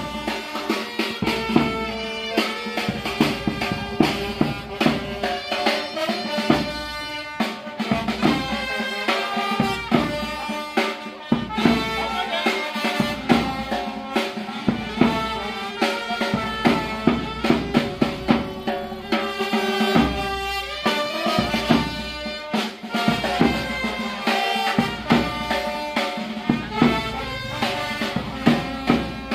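Funeral band playing: horns carrying a melody over snare drum and percussion, with drum strokes throughout.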